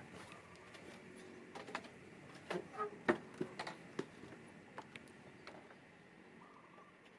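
About a dozen irregular knocks and taps, bunched in the middle and loudest about three seconds in, over a faint steady background.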